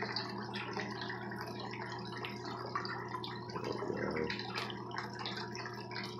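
Water running down a plastic rain-gutter sluice box over ribbed matting, trickling and dripping with many small splashes, over the steady low hum of a large sump pump recirculating the water.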